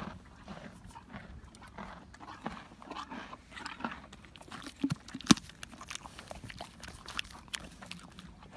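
A horse sniffing and nuzzling right at the camera, its muzzle brushing and bumping the microphone in scattered clicks and rustles, with one sharp knock about five seconds in.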